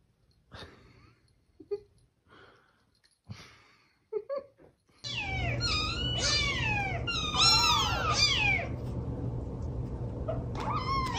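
Several small kittens mewing over and over, their high-pitched cries overlapping and each arching up then falling in pitch, starting suddenly about five seconds in. Before that there are only a few brief faint sounds.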